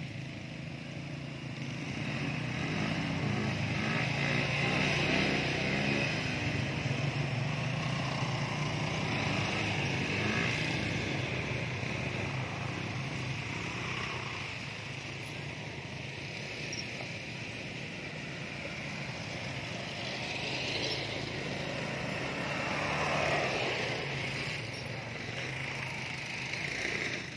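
ATV (quad bike) engine running as it rides along a dirt track, swelling louder as it passes close and fading as it pulls away, then growing louder again as it comes back around near the end.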